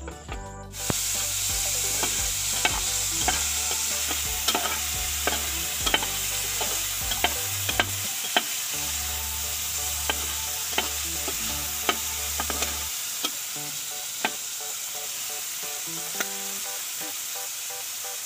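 June beetles frying in oil in a steel pot. A steady sizzle starts suddenly about a second in, and a spatula clicks and scrapes against the pot as they are stirred. The clicks thin out over the last few seconds. This is the frying stage, after the vinegar they were boiled in has cooked off and oil has been added.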